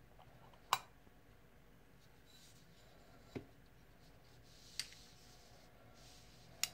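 An aluminium coffin-shaped vape box mod being opened and handled: four sharp metal clicks and taps as the lid comes off and the two halves are set down on a desk mat, the first the loudest, with faint rubbing between.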